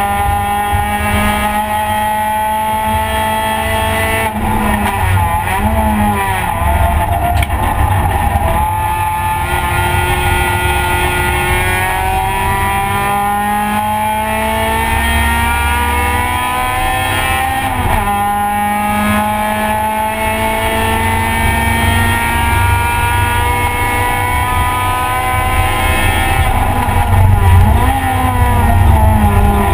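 Race car's engine heard from inside the cabin under hard driving on a circuit, its pitch climbing slowly through long pulls and dropping suddenly about 4 and 18 seconds in, with quicker rises and falls near the end.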